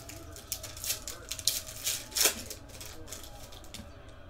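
Foil wrapper of a trading-card pack being torn open and crinkled by hand: a run of sharp crackles over the first two seconds or so, loudest a little past two seconds in, then quieter.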